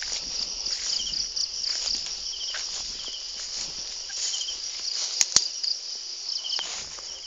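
Insects chirping in a steady high-pitched chorus, with short chirps repeating over it, while footsteps move through grass and undergrowth. Two sharp clicks come a little after five seconds in.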